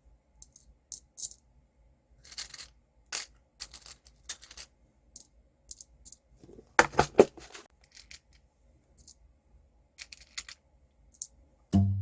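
Small clicks, taps and crinkles of hands handling small craft pieces on a work surface, with a louder clatter of knocks about seven seconds in. Background music starts right at the end.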